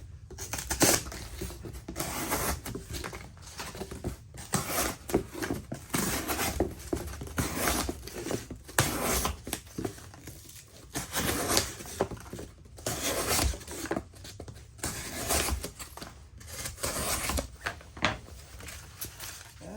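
Civivi Altus folding knife's Nitro V blade slicing through a single-layer cardboard box that is slightly damp, in a run of irregular scraping, tearing strokes with short pauses. The blade, which the owner finds less sharp than expected, still gets through the cardboard.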